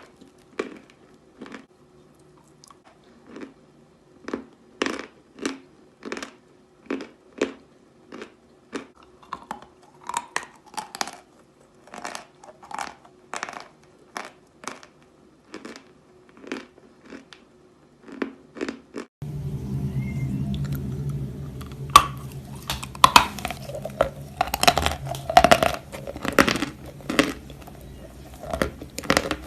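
Natural chalk being crunched and chewed close to the microphone, in short crunches about two a second. About two-thirds of the way in, a steady low hum starts underneath and the crunches get louder and closer together.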